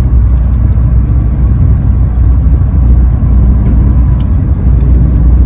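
Steady low vehicle rumble heard inside a car cabin, with a few faint ticks over it.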